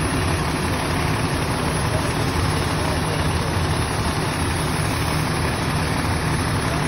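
Fire truck's diesel engine running steadily at the fire scene, a constant low, even drone with no change in speed.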